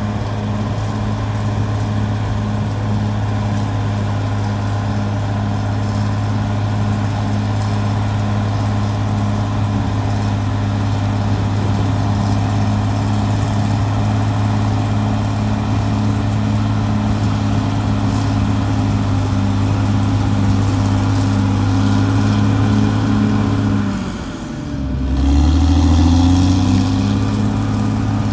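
Caterpillar D6R XL bulldozer's diesel engine running at a steady speed. About 24 seconds in, the engine note dips briefly, then climbs back and runs louder.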